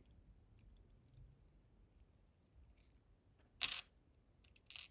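Small metal lock parts clicking against each other and the work surface while being handled: two short clinks, the first a little under four seconds in, the second about a second later.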